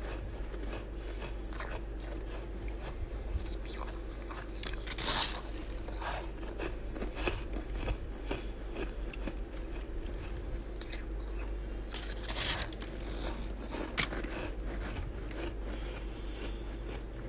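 Close-up crunching of chest-freezer frost ice being bitten and chewed, irregular crisp crunches with two louder bites about five and twelve seconds in, over a steady low hum.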